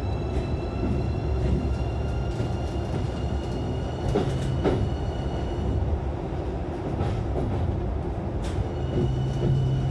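Keikyu electric train running, heard from inside the front car: a steady rumble of wheels on rail with sharp clicks and knocks as it passes over points. A thin steady high whine fades out and returns near the end.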